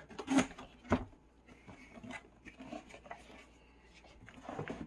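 Cardboard box being opened by hand: flaps scraping and rustling, with two sharper knocks in the first second.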